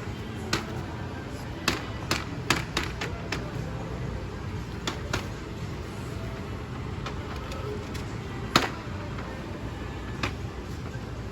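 Store background noise: a steady low hum with scattered clicks and knocks of things being handled, the sharpest knock about eight and a half seconds in.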